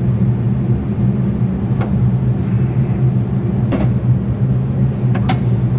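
Steady low hum of an idling engine, with three sharp knocks or clanks, about two, four and five seconds in.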